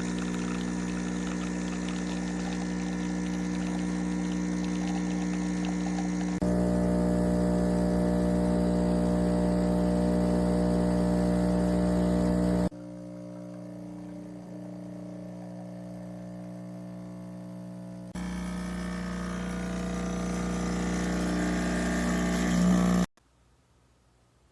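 De'Longhi Stilosa espresso machine's pump running with a steady hum, as when pulling a shot. Its level jumps abruptly a few times, then swells and cuts off suddenly near the end.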